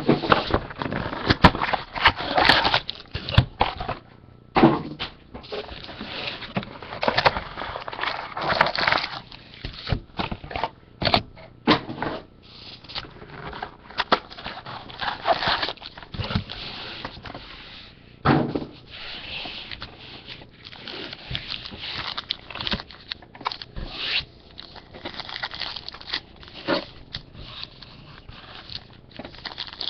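Trading card boxes being opened and their sealed packs handled and set down on a table: an irregular run of rustling, scraping and small knocks.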